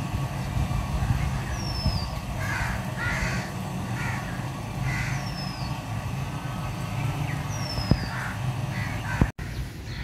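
Crows cawing several times in short harsh calls, with another bird giving a high falling whistle about every two and a half seconds, over a steady low hum.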